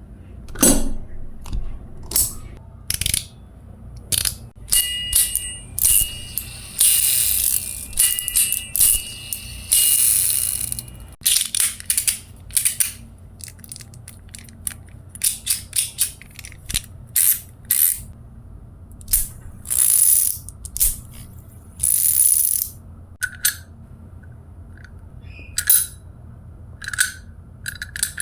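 Metal fidget toys being worked by hand: sharp metallic clicks and snaps throughout, with a few seconds of continuous whirring and faint ringing tones about five to ten seconds in.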